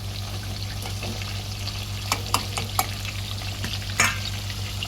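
Chicken pieces frying in oil with a steady sizzle, being stirred, with a few sharp clicks of the stirring utensil against the pan, the strongest about four seconds in.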